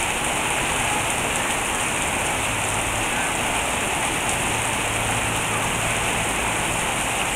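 Heavy rain falling steadily on a wet street and the shelter roof overhead.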